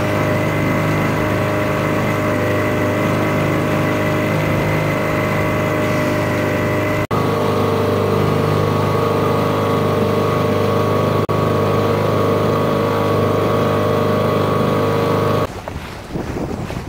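A sailboat's auxiliary motor running steadily, a constant engine hum with two brief breaks. Near the end it gives way to wind and water rushing past the hull.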